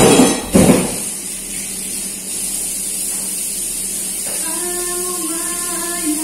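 Loud clatter of kitchenware being set down, with a second knock just after, as a cover is put over the bowl of soaking chicken. About four seconds in, a woman's voice sings a drawn-out note for a couple of seconds.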